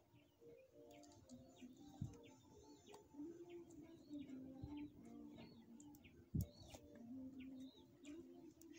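Faint birdsong outdoors: low dove coos and small birds chirping over and over. A few short knocks come through, the sharpest about six seconds in.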